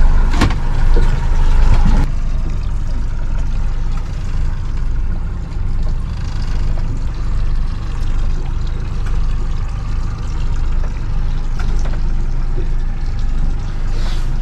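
Engine of a moving vehicle running steadily with a low rumble. A louder sound in the first two seconds cuts off abruptly about two seconds in.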